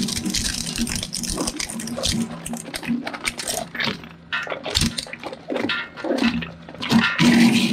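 Industrial shredder's steel cutter blades turning under a steady motor hum, repeatedly knocking and rattling against a large pair of Celestron binoculars that bounce on the blades without being caught.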